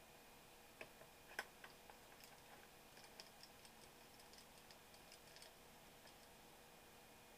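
Faint clicks and ticks of small hard parts and tools being handled on a laptop: two sharper clicks in the first second and a half, then a run of light, irregular ticks.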